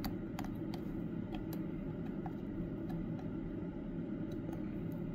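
Steady low whir of a fume extractor fan, with a few faint clicks and taps from handling the circuit board and soldering iron.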